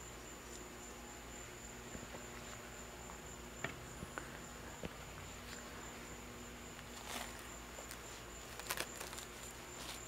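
Crickets trilling steadily and faintly on one high pitch, with a few soft clicks and brief scrapes, as of a brush working paint stripper onto metal parts.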